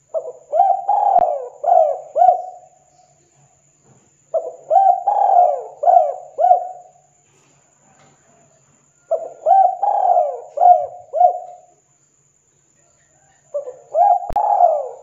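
Spotted dove (tekukur) cooing. It gives four phrases, each a run of about four or five rising-and-falling coos lasting about two and a half seconds, one roughly every four and a half seconds, the last starting near the end.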